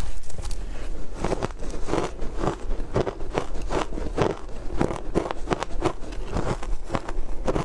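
Chewing mouthfuls of shaved ice dusted with matcha powder: a steady run of crisp crunches, about three a second.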